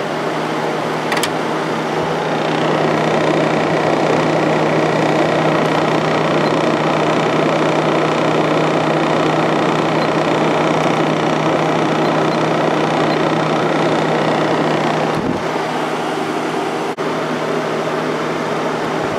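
Kenmore (Whirlpool) 5,000 BTU window air conditioner running with its fan on high: a steady rush of air over the low hum of its Matsushita compressor. The air noise grows a couple of seconds in. About fifteen seconds in there is a brief click and the airflow noise drops, leaving mostly the compressor hum.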